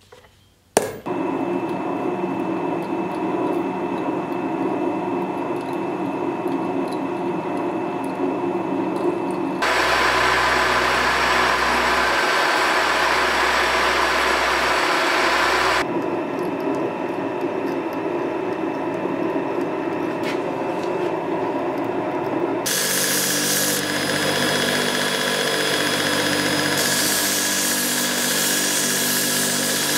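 Workshop power tools running in a series of cut-together sections: a drill press boring into a metal block, and near the end a belt grinder grinding a small steel part. Each section is a steady machine noise that switches abruptly to the next.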